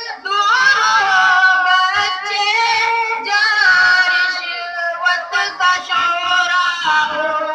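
A boy singing a tarana through a microphone and loudspeaker, in long held, wavering notes.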